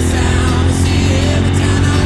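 Background music: a pop-rock song with guitar and a singing voice, with a steady heavy low end.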